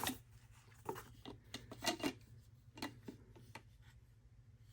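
Packaging and a small product handled by hand during an unboxing: scattered light rustles, rubs and taps, most of them in the first three and a half seconds.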